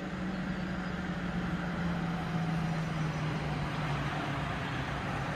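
Road traffic: vehicles passing on a winding highway, an engine's hum slowly falling in pitch over steady tyre and road noise.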